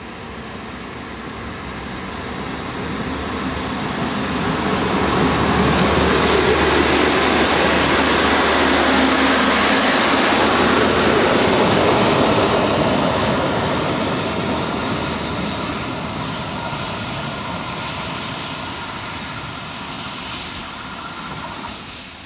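Swedish Y1 diesel railcar departing and passing close by: the sound of its engine and wheels on the rails builds to a peak about six to twelve seconds in, then fades as it runs away.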